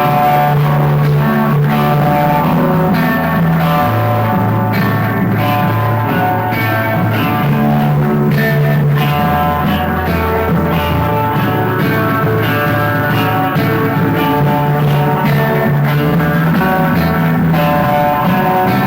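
Guitar-led rock music, with a bass line that holds each note for a few seconds before moving on.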